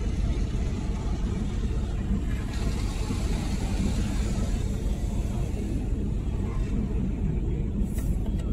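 Automatic car wash heard from inside the car's cabin: a steady low rumble of the wash machinery, with a hiss of spray rising for a few seconds from about two and a half seconds in. A few sharp ticks near the end as water starts hitting the windshield.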